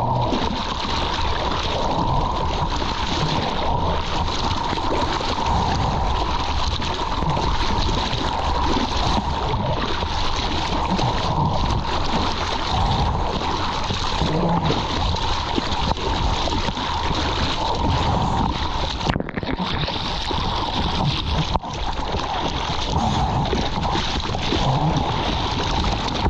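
Churning water rushing and splashing over a surfboard-mounted camera as the board moves through whitewater: a steady, dense wash of water noise that cuts out briefly twice in the second half.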